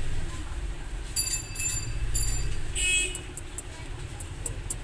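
A few short, high electronic beeps in quick succession, then a brief buzzier high tone about three seconds in, over a steady low rumble.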